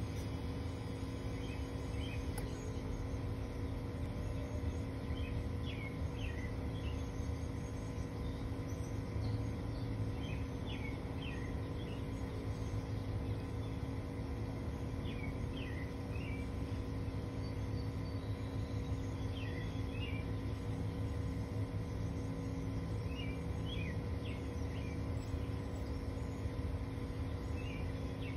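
Birds chirping in short groups of calls every few seconds over a steady low background hum; no engine is running.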